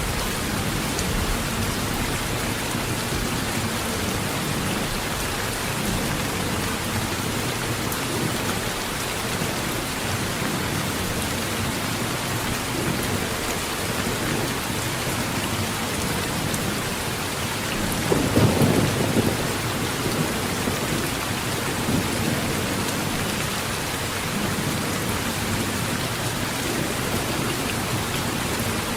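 Steady heavy rain on a metal roof, with a single roll of thunder about two-thirds of the way through.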